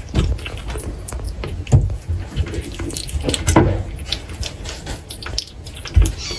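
Irregular small clicks, taps and wet smacks from kittens eating meat, with a few dull thumps, one about two seconds in and one near the end.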